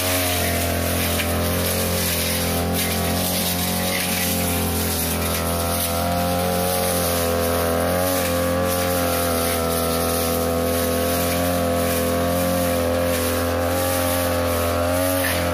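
Backpack brush cutter's 42cc engine running steadily at high speed, its pitch wavering slightly as the blade cuts through thick grass.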